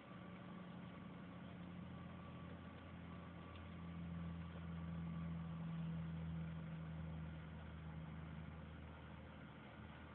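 A faint, steady low mechanical hum that grows louder from about four seconds in and eases off again near the end.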